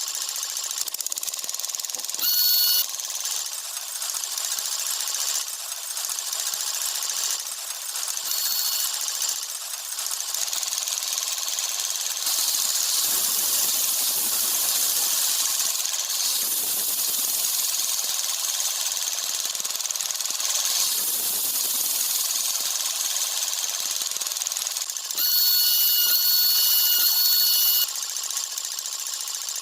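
Tractor-driven borewell drilling machine running: a steady, harsh mechanical clatter and hiss. A high whistling tone cuts in briefly about two and eight seconds in, and again for about three seconds near the end.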